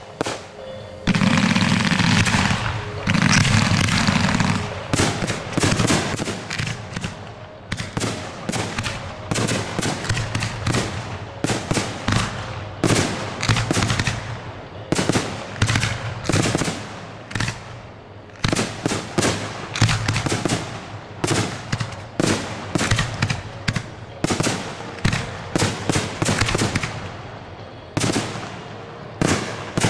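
Fireworks display: the first few seconds are continuous loud noise, then a rapid, irregular run of firework bursts and launch reports, several bangs a second.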